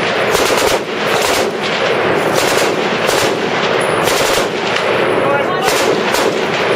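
Automatic gunfire from machine guns, rapid bursts of shots overlapping with no break.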